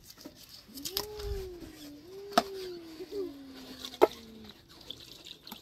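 A livestock animal gives one long, low call, rising briefly and then slowly falling in pitch over about three and a half seconds. Three sharp clicks, the loudest sounds, come from a knife striking a metal tray while a raw chicken is cut up.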